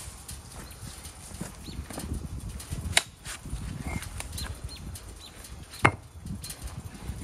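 Scattered knocks and clatter of hard objects being handled on a brick patio, with two sharp knocks about three and six seconds in.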